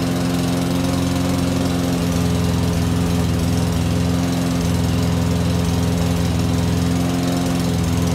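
Walk-behind gasoline lawn mower engine running steadily at a constant speed, an even hum with no change.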